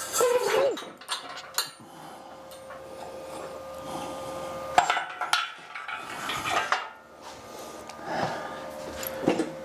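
Irregular scraping, rubbing and knocking of heavy objects being handled on a workbench, a few sharp clatters among them, over a steady faint hum.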